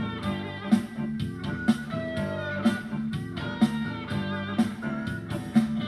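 Upbeat pop music with guitar, a sharp drum hit about once a second.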